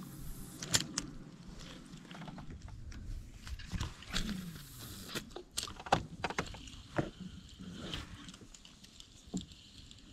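A spinning rod and reel handled close to the microphone: scattered clicks and knocks, the loudest about a second in and again near the middle, over faint background noise.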